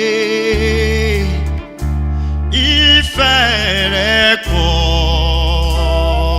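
Gospel praise music: a voice holds long notes with vibrato, gliding between pitches, over a steady low bass that stops briefly a few times.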